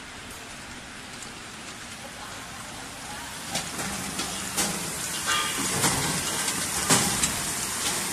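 A continuous industrial frying machine running, with a steady hiss and scattered crackles as chips fry in hot oil and are carried out on the mesh conveyor. The sound grows louder about halfway through.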